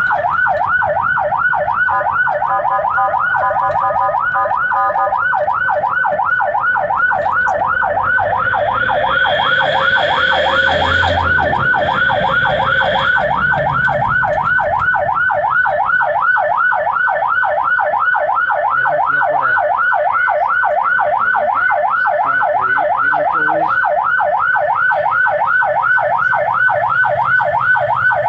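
Ambulance's electronic siren on the yelp setting, heard from inside the cab: a fast, steady up-and-down wail at about three sweeps a second, with a short louder stretch around ten seconds in.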